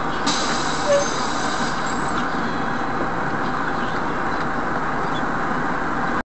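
Steady road and engine noise of a moving vehicle, picked up by a dashcam inside the cab, with a short knock about a second in.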